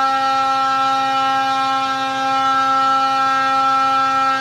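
Polaris Axys 850 snowmobile's two-stroke twin engine held at wide-open throttle around 8,000 rpm under dyno load, breathing through a Bikeman Powder Lite muffler. It runs loud and high-pitched, at a steady pitch without rising or falling.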